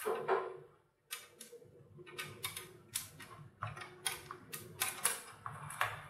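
Small sharp clicks and taps of hard plastic kit parts, about fifteen in an irregular run: a 1/35-scale plastic model's hull, road wheels and track lengths handled with a hobby knife.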